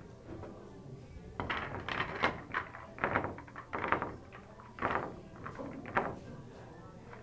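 Pool balls clacking against each other and the triangle rack as they are gathered and racked for the next break: a string of short knocks from about a second and a half in until about six seconds in.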